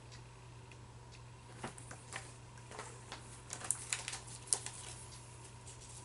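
Comic books being handled: soft paper rustles and light scattered clicks and taps as the comics are moved, over a steady low hum.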